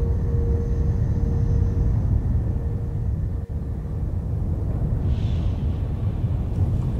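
A steady low rumble, with a held ringing tone that fades out in the first two seconds.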